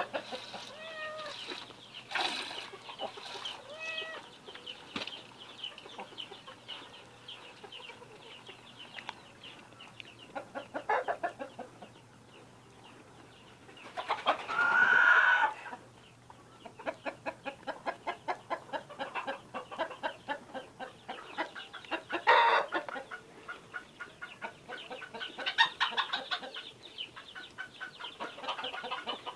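Milk squirting from a cow's teats into a metal pail during hand milking, a steady run of short spurts at about three a second that stops for a stretch and resumes. There is a louder, drawn-out animal call about halfway through.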